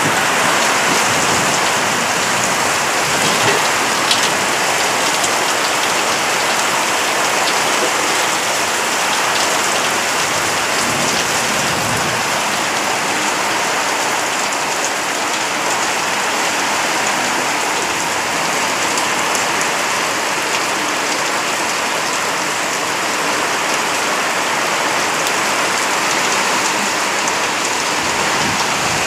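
Heavy rain falling steadily on corrugated metal roofs.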